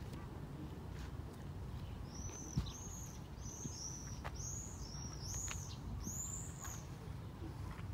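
A bird calling a series of short, high-pitched notes, each rising then falling, about eight of them over some five seconds, over a steady low rumble. A single brief thump sounds about two and a half seconds in.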